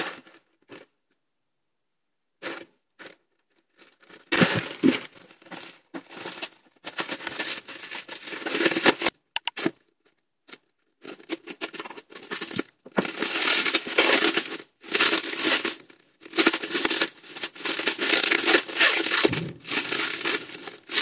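Plastic packaging crinkling and tearing by hand in irregular bursts: a courier bag being opened and clear plastic film pulled off a wire iron stand. It starts about two seconds in, with a short pause near the middle.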